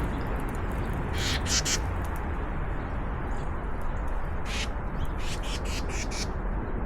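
Harsh bird calls over a steady low background rumble: three quick calls about a second in, one more a little later, then a run of several near the end.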